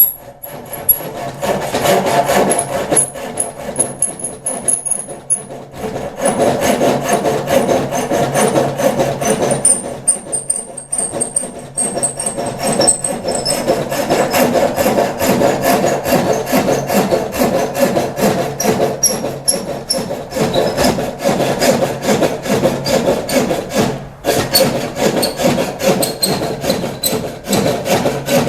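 A hand tool cutting or shaping maple in fast, continuous scraping strokes, with short breaks about 6 and 10 seconds in and again near 24 seconds.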